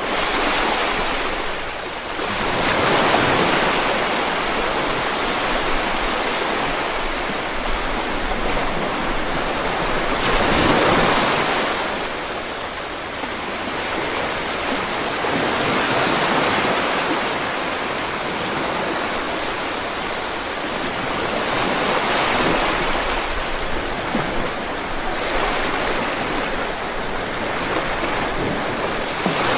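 Steady rain, a dense even hiss that swells and eases every several seconds.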